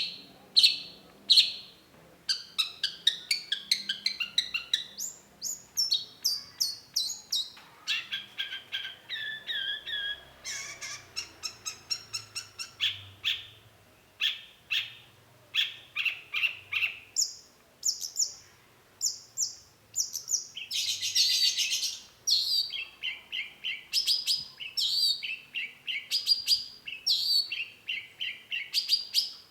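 Long-tailed shrike (cendet) singing a loud, varied song of rapid short notes. The phrase changes every few seconds, from quick repeated chips to sweeping whistled notes.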